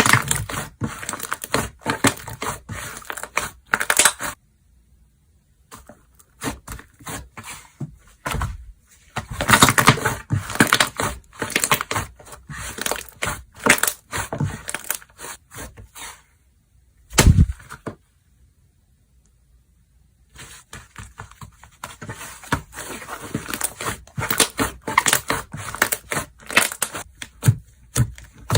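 Slime being squished, stretched and poked by hand, giving dense crackling and clicking pops in bursts, with two short pauses and one low thud about two-thirds of the way through.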